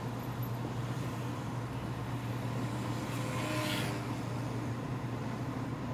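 Car driving along a road: a steady low drone of engine and tyre noise, with a brief rushing swell about three and a half seconds in.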